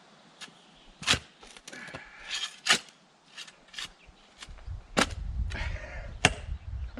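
A spade digging into stony soil: a series of sharp knocks and scrapes as the blade strikes earth and stone, four of them loudest. A low rumble joins in the second half.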